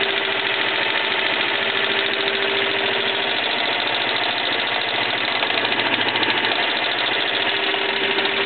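Lathe headstock gearbox of a 1K62 lathe running with its top cover off: gears whirring with a steady rhythmic knocking, which comes from the headstock oil pump. A steady hum drops out about three seconds in.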